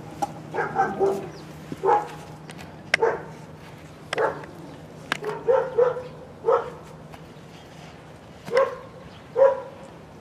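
A dog barking repeatedly: about ten short barks at irregular intervals, some in quick pairs. A steady low hum sits underneath and stops near the end.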